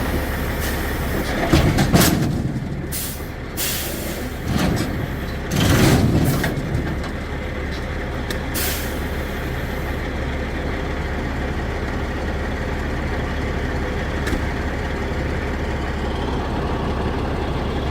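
Semi-truck's diesel engine running steadily with a low drone. In the first few seconds it is broken by several short bursts and clicks, the loudest about two and six seconds in, then it settles into an even run.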